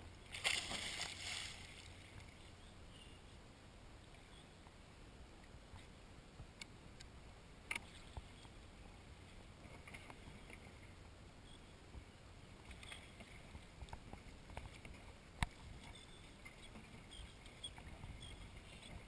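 A person jumping feet-first off a paddle boat and splashing into the sea about half a second in, the loudest sound, lasting about a second. Afterwards only faint water lapping against the boat's plastic hull, with scattered small ticks and an occasional sharp click.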